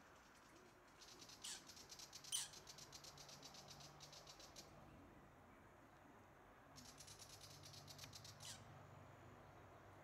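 Camcorder zoom motor whirring with a fast, even ticking, in two spells: from about a second in to nearly five seconds, and again from about seven to eight and a half seconds. A few sharper clicks stand out over it.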